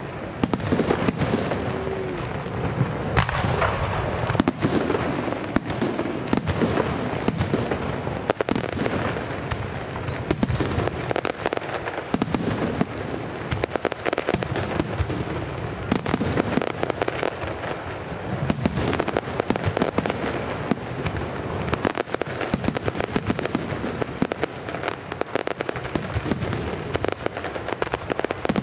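Professional aerial fireworks display: a dense, unbroken barrage of shell bursts, with sharp bangs and crackles coming several times a second.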